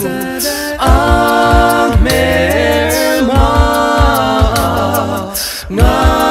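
Male vocal group singing an a cappella medley in close harmony: held chords over a low sung bass line, with a steady low thump about twice a second underneath.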